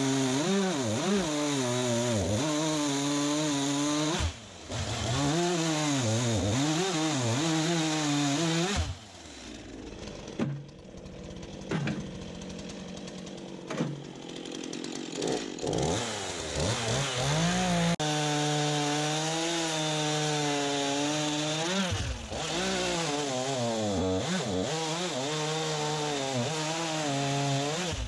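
Chainsaw cutting firewood logs to length, its engine pitch sagging and recovering as the chain loads in the wood. In the middle it falls quieter for several seconds, then cuts again at full throttle.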